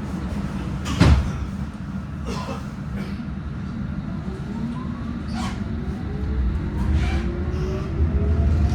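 London Underground Metropolitan Line S8 stock train's traction motors whining, several tones rising steadily in pitch as the train accelerates, over a steady low rumble of the running gear. A single loud knock about a second in.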